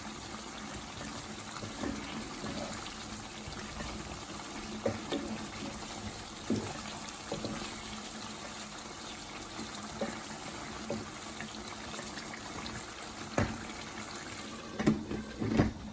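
Chicken karahi simmering in its covered pan over a medium flame: a steady bubbling hiss with occasional sharp pops, and a few louder knocks near the end.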